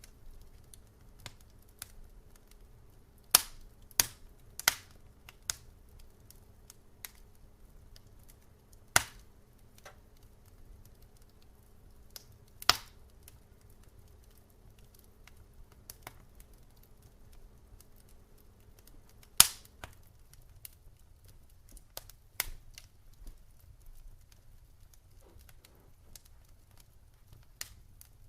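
Wood fire crackling in a fireplace: sharp pops and snaps at irregular intervals, a few much louder than the rest, over a low steady rumble. A faint low hum stops about two-thirds of the way through.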